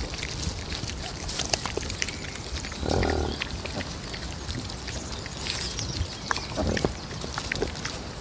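Pigs grunting while a sow and her piglets root in loose soil: a low grunt about three seconds in and another near seven seconds, over many short clicks and rustles of snouts working the dirt.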